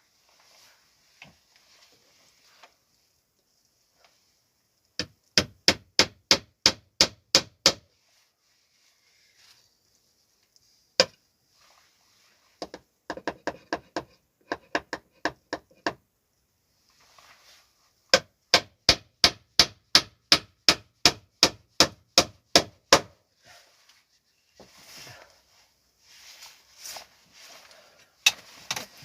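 Hammer driving nails into wood: quick runs of sharp strikes, about four a second, with a lighter run of taps in the middle.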